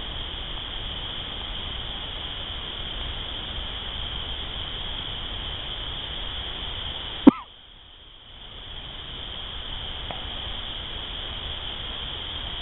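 A steady, high-pitched trill from a chorus of calling creatures at night. About seven seconds in there is a single sharp click, after which the sound drops out for about a second and then comes back.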